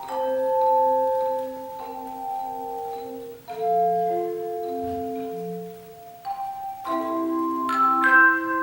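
A tone chime ensemble playing a piece: hand-held aluminium chime bars struck by their built-in hammers, each ringing a pure, sustained note, overlapping into chords. The notes come about one every second, and a cluster of quicker notes sounds near the end.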